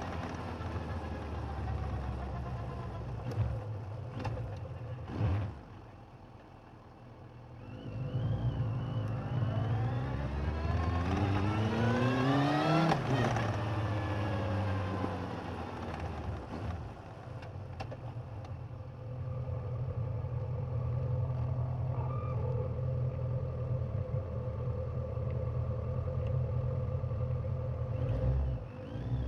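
Suzuki GSX1250FA inline-four engine heard from a mic under the seat while riding. The engine drops off about five seconds in, then revs up in one long rise in pitch that peaks about halfway through and falls away again, before settling to a steady cruising note.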